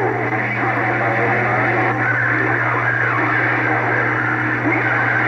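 Radio receiver audio: steady static with faint, garbled voice fragments over a constant low hum.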